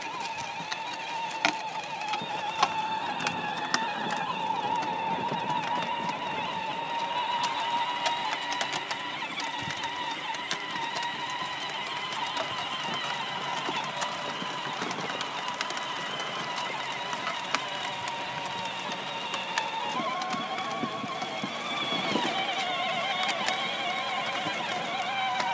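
Electric motor and gearbox of a child's battery-powered ride-on toy Gator whining at a steady pitch, with scattered clicks. The pitch steps up slightly about twenty seconds in.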